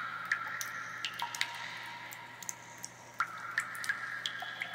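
Water drops falling irregularly, a couple of plinks a second, each ringing briefly with a high pitched tone, over a faint steady low hum.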